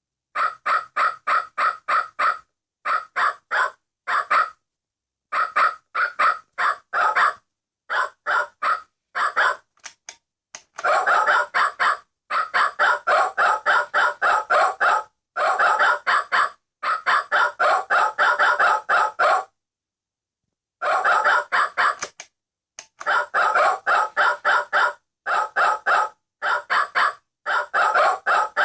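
Vintage singing-dog novelty alarm clock sounding its alarm: a rapid string of short yapping notes, about four a second, in runs of a few seconds broken by brief silent pauses.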